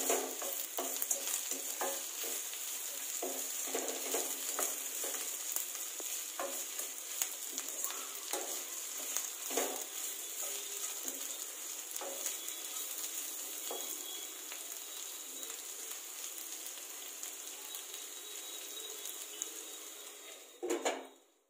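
Mixed vegetables sizzling in hot oil in a stainless-steel kadai, stirred with a wooden spatula that knocks and scrapes against the pan. Near the end a glass lid is set down on the pan with a brief louder clatter, and the sizzle cuts off suddenly.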